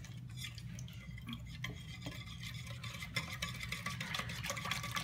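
A utensil stirring sugar and water in a plastic pitcher: quick small clicks and scrapes against the pitcher's sides, kept up throughout.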